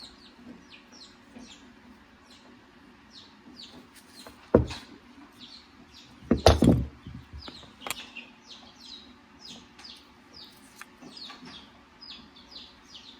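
Birds chirping in a quick, steady patter of short high calls, with a sharp knock about four and a half seconds in and a louder cluster of knocks around six and a half seconds.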